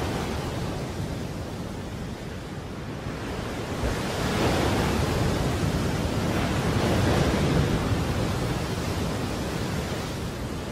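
Heavy storm surf crashing against a rocky cliff shore in cyclone-force wind: a dense rushing noise that swells about four seconds in and again around seven seconds as the big waves break.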